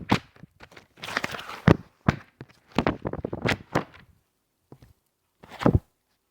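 Sheets of paper being handled: irregular bursts of rustling and crinkling mixed with a few dull thumps. A pause of about a second follows, then one last burst near the end.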